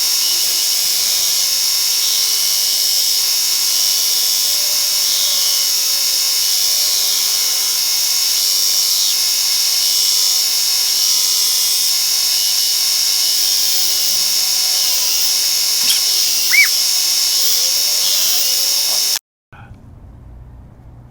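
Work Sharp Ken Onion Edition belt sharpener running, its abrasive belt grinding a steel knife blade's bevel against the flat platen: a steady high-pitched whirring hiss. It stops abruptly near the end.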